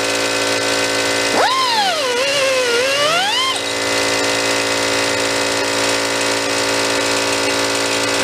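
Air-powered die grinder spinning up about a second in, its whine sagging and rising as it is worked along the edges of an aluminium piston to smooth them, then stopping a couple of seconds later. A steady machine hum carries on underneath.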